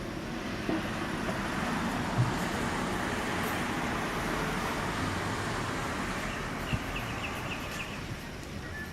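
Road traffic passing, a broad noise that swells and then eases off, with a couple of brief knocks. Near the end a bird gives a quick run of about seven short, high chirps.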